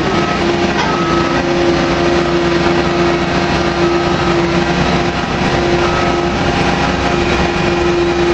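Drilling rig machinery running steadily during casing running: a loud, unbroken engine-like rumble with a steady whine held over it.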